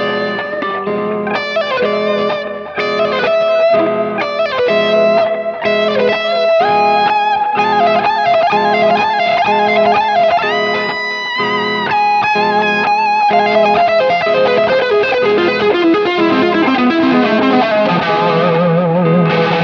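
Electric guitar improvising a lead line in the Phrygian dominant scale, with bends and vibrato, over a looped rhythm guitar part played back by a Line 6 Helix looper.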